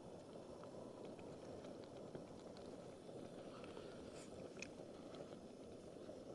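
Faint, steady low rumble of a lit Trangia methylated-spirit burner under a pan, with a few faint clicks.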